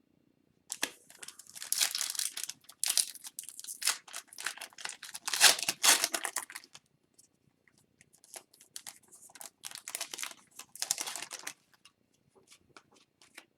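Wrapper of an Upper Deck hockey card pack being torn open and crinkled, in two spells of rustling with a short pause between them and a few light clicks near the end.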